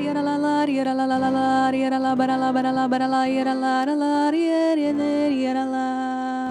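Slow devotional music: a voice sings long held notes in a chant-like melody.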